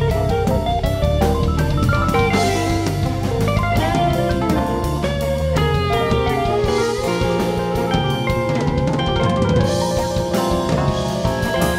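Live rock band playing an instrumental jam: two semi-hollow electric guitars trade melodic lead lines over a steady drum kit beat.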